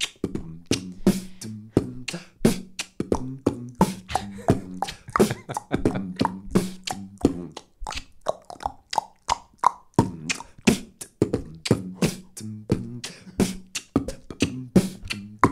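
Human beatboxing: a steady, quick beat of mouth-made kick and snare clicks over a hummed bass line that moves in steps.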